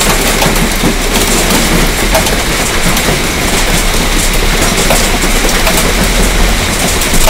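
Hail and heavy rain pelting down hard: a loud, dense, steady clatter of many small hits.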